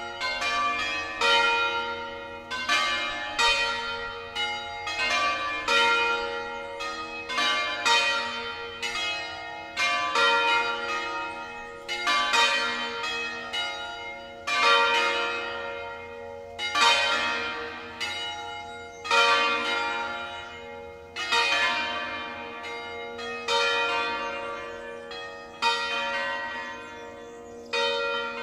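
A ring of five church bells tuned in B♭, swung on their wheels and ringing together. Their strikes fall several every couple of seconds, each leaving a long ring that overlaps the next.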